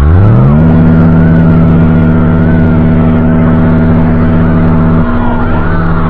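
Loud, harsh emergency alert alarm made of many stacked tones. It sweeps up sharply in pitch from very low over the first half second, then holds a steady pitch. One of the lower tones cuts out about five seconds in.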